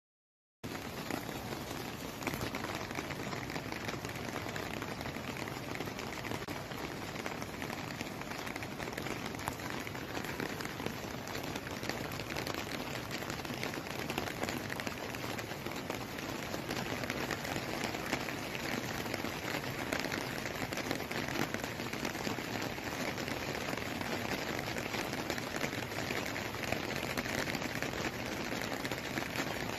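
Heavy rain falling, a steady even hiss that starts about half a second in.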